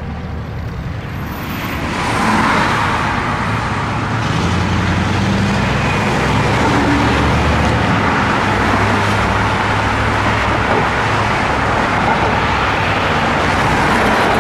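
Road traffic at a street intersection: a steady rush of car engines and tyres that swells about two seconds in and then holds.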